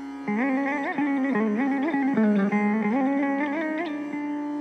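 Electric guitar playing a Carnatic melody in raga Varali: plucked notes joined by sliding, oscillating ornaments, dipping to a lower sustained note midway and settling on a long held note near the end.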